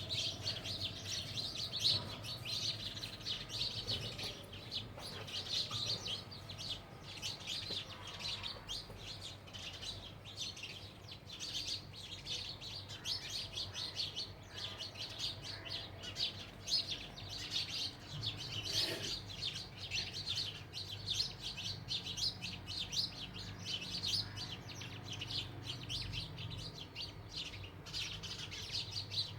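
Several house sparrows chirping continuously, with many short chirps overlapping one another.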